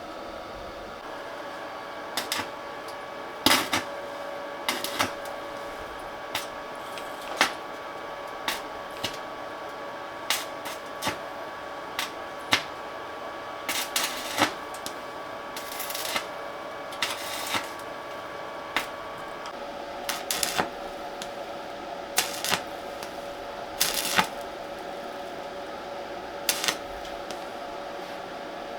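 Irregular clicks, knocks and short scrapes of hand tools working on metal machine parts, over a steady hum.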